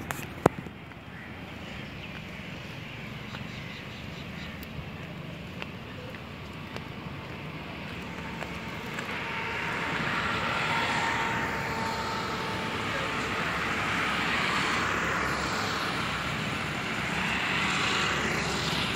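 Steady outdoor rush of passing engine and wind noise, growing louder about halfway through, with a sharp click just after the start.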